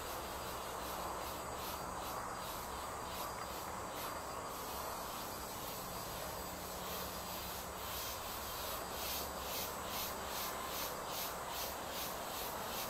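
An insect chirping in a steady rhythm of about three high-pitched pulses a second. It pauses for a couple of seconds about four seconds in, then resumes, over a steady background hiss.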